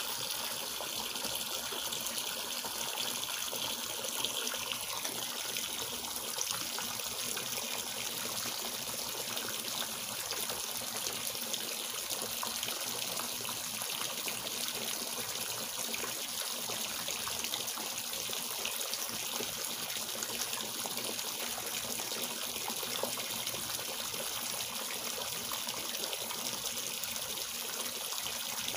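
Steady splashing of a stream of water pouring from a pipe into a garden fish pond.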